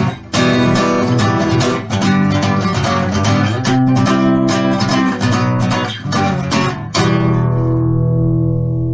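Acoustic guitar strummed in a steady rhythm, then a final chord struck about seven seconds in and left ringing and fading.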